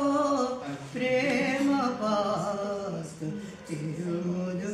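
Solo voice singing a Bengali song unaccompanied, with long held, wavering notes.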